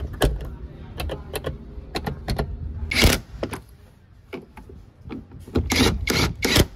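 Plastic clicks and knocks from car roof lamps being refitted: a lamp lens pressed into the overhead console and a screwdriver fastening the dome-light housing, with louder rattling handling noise about three seconds in and again near the end.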